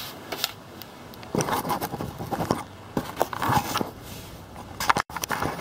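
Irregular knocks, scrapes and rustles of the camera being handled and moved about, with a louder clunk just before the end.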